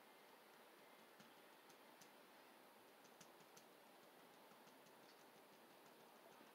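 Faint, irregular ticks of a ballpoint pen tip tapping on paper, stippling dots onto a drawing.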